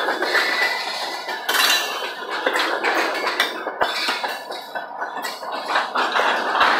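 Freight cars rolling past close by: steel wheels on the rails with a steady run of metallic clanking and rattling from the cars' running gear.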